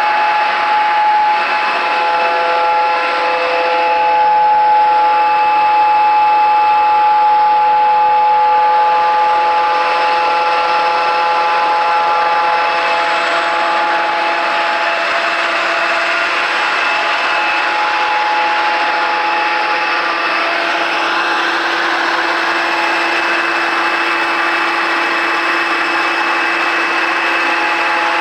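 30 hp Dresser LeRoi 30SSE rotary screw air compressor running: a loud, steady machine noise with several steady whining tones over a hiss. About halfway through, a lower hum joins and the hiss grows fuller.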